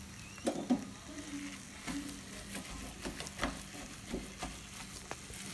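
Wooden spatula stirring a thick chicken masala in a pan, scraping through the mixture and knocking against the pan a few times.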